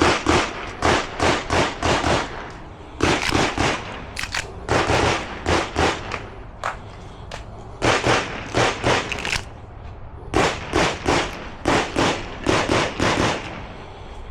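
Rapid competition handgun fire: strings of quick shots, mostly in fast pairs and runs of three to six, with short pauses between groups as a shooter moves between target arrays.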